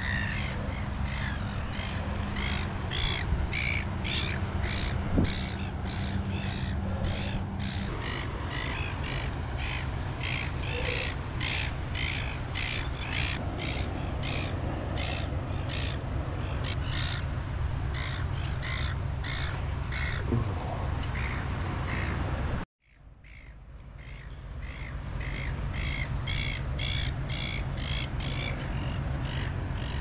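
Footsteps crunching on beach sand at a steady walking pace, about two steps a second, over a low steady rumble. The sound drops out abruptly about two-thirds of the way through and fades back in.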